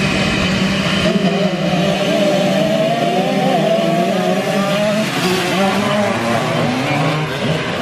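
A field of small motocross bikes revving together at the start and accelerating away as a pack, with several engine notes rising and wavering over one another.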